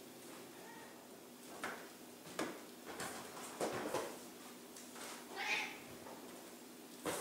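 Ragdoll cat meowing: a faint short call about a second in and a louder, drawn-out call around five and a half seconds, with a few soft knocks in between.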